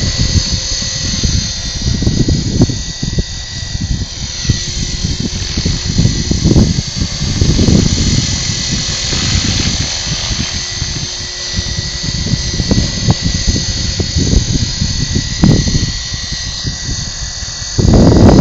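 Wind buffeting the microphone in heavy gusts, over the steady high whine of a flying RC airplane's motor and propeller. A stronger gust hits near the end.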